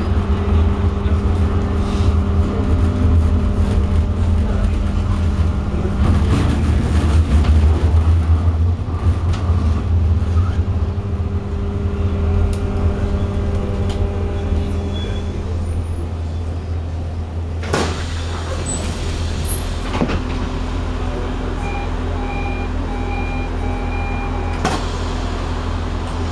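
Tram interior noise: a steady low rumble with a motor whine while the car runs, easing off about halfway as it slows and comes to a stop, with a few sharp clicks in the second half.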